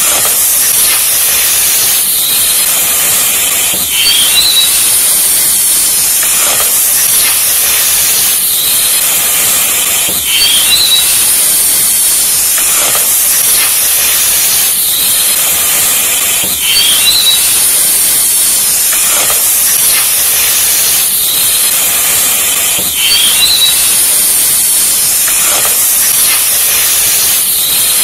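Loud, steady hissing sizzle that repeats the same pattern about every six seconds: a looped sizzle sound effect, standing for a red-hot knife against skin.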